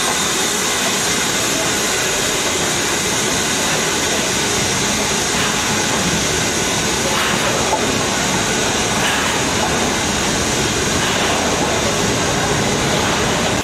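Steam locomotive hissing loudly and steadily with escaping steam, close by, as the train moves slowly past.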